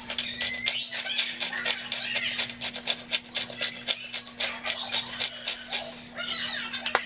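Disposable Stonemill black peppercorn grinder twisted by hand, a fast run of crackling clicks as the peppercorns are ground. The clicks stop about six seconds in.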